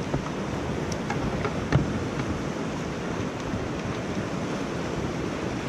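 Fast whitewater river rushing steadily around a kayak, with a few sharp knocks, the loudest about two seconds in.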